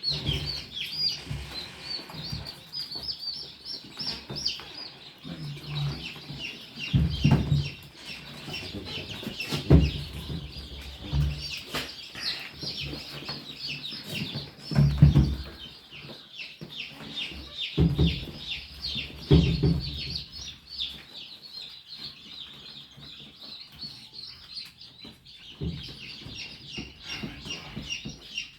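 Many newly hatched Improved Kienyeji chicks peeping together: a dense, continuous chorus of short high peeps. It is broken several times by louder low bumps or thuds.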